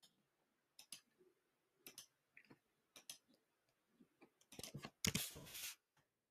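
Faint computer clicks, several in quick pairs, then a quick run of keyboard keystrokes and a short burst of rustling noise about five seconds in.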